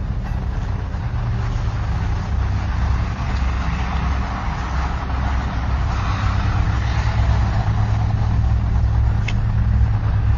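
Steady low rumble of street traffic, heard through a doorbell camera's microphone.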